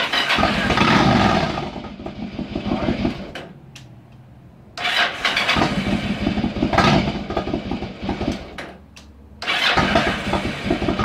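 Yamaha V-Star 1100's air-cooled V-twin starting on its electric starter after a starter-clutch replacement, with the starter now engaging and the engine firing. The engine sound comes in three loud bursts, each beginning suddenly and dying down over a few seconds.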